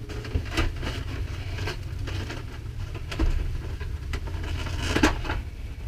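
Stiff clear plastic clamshell packaging crinkling and crackling as it is worked open by hand, with a few sharper snaps, the loudest about five seconds in. A steady low hum runs underneath.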